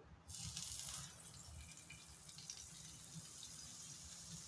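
Butter sizzling as it hits a hot non-stick frying pan: a sudden hiss that is strongest for the first second, then settles to a faint, steady sizzle as the butter melts and foams.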